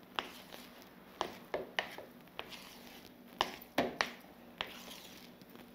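A spoon knocking and scraping against a bowl in irregular sharp clicks, about ten of them, while stirring chipa dough of cassava starch.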